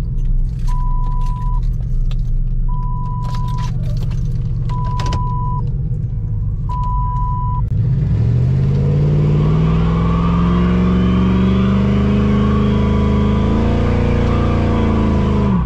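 A car engine idling while a warning chime beeps about once a second; about eight seconds in, the engine revs up and is held at high revs, its pitch climbing steadily for several seconds before falling off abruptly near the end.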